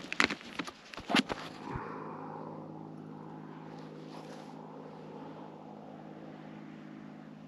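A few sharp knocks and clacks, then an engine running steadily at an even pitch from about two seconds in.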